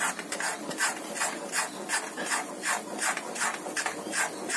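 Metal spatula scraping the bottom of a kadhai in quick, even strokes, several a second, while stirring semolina and gram flour roasting in ghee over a low flame until golden.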